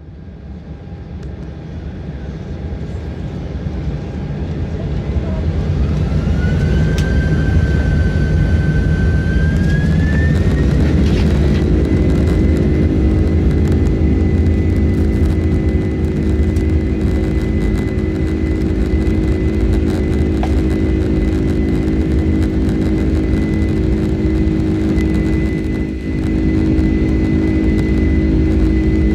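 General Electric CF6 turbofans of a Boeing 767-300ER spooling up to takeoff thrust: a whine rising in pitch as the engines grow louder over the first ten seconds or so, then settling into a steady high tone over a constant low roar.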